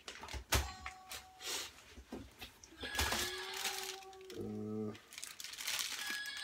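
Clear plastic bags crinkling and rustling in irregular crackles as bagged cables and small electronics are handled and lifted out of a cardboard box. A short low hum comes about four and a half seconds in.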